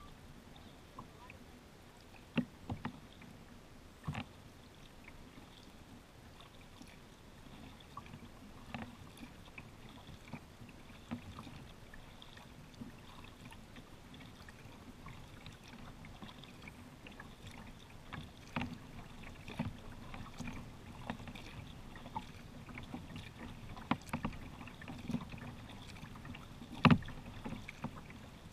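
Kayak being paddled on calm water: quiet paddle strokes with scattered sharp knocks and clicks at irregular intervals, the loudest a second or two before the end.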